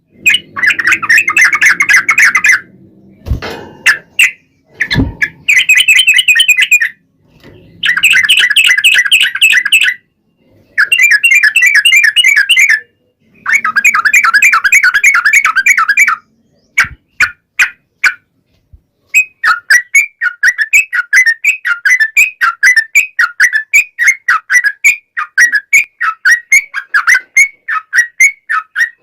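Yellow-vented bulbul (trucukan) song: loud bursts of fast chattering trills, each lasting one to three seconds with short pauses between. About two-thirds of the way through it settles into a long unbroken run of repeated notes, about four a second.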